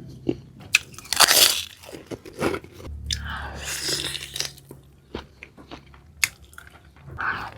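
Close-up crunching and chewing of food, with irregular bites and clicks; the loudest crunching comes about a second in and again from about three to four and a half seconds.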